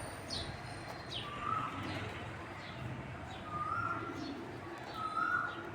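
A cuckoo calling three times, each a short, clear whistled note rising slightly in pitch. Between the calls come quick, high, falling chirps of small birds, with pigeons cooing low underneath.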